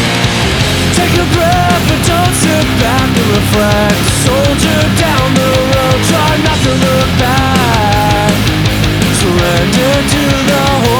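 Melodic punk rock band playing at full volume: distorted guitars, bass and drums with fast cymbal hits, and a melody that bends up and down over them, with no sung words.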